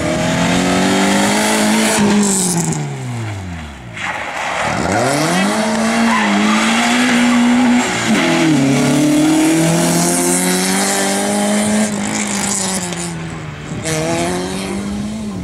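Rally car engine worked hard, its pitch climbing repeatedly through the gears. About four seconds in the pitch falls sharply and then climbs again, and it drops again near eight seconds and near the end.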